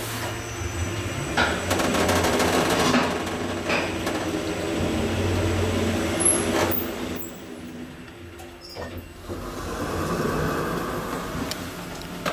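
Schindler EuroLift machine-room-less traction elevator car travelling down a floor: a steady hum and rumble of the ride. About seven seconds in, after a few clicks, it quietens as the car slows and stops.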